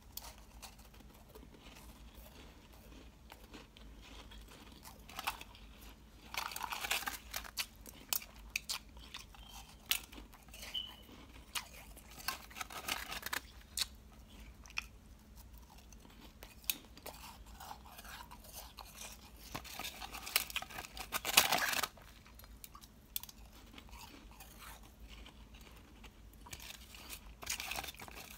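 Close-miked crunching and chewing of soft, powdery ice: clusters of many small crisp crunches, loudest a little past the middle, with quieter stretches of lighter chewing between.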